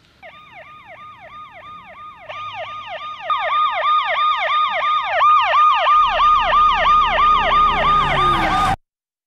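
Police car siren in a fast yelp, about five sweeps a second, getting louder as it approaches, with a low rumble joining about six seconds in. It cuts off suddenly shortly before the end.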